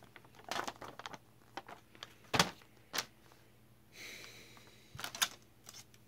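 Rustling of a paper instruction sheet and handling of black plastic dash-kit mounting brackets, with a few sharp plastic clacks, the loudest about two and a half seconds in and again about five seconds in.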